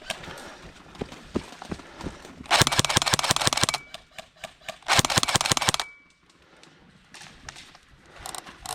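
Airsoft rifle firing two full-auto bursts of rapid clicking shots, each lasting about a second, the first about two and a half seconds in and the second about five seconds in.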